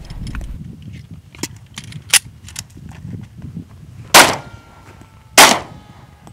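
Two pistol shots from a Glock 27 in .40 S&W, about a second apart, each followed by steel target plates ringing. A few fainter sharp cracks come earlier.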